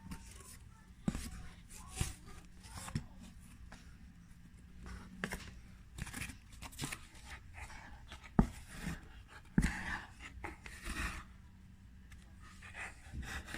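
Woollen yarn being wound around a piece of cardboard by hand: rustling and scraping of yarn over cardboard, with scattered light knocks as the card is handled, two of them sharper than the rest.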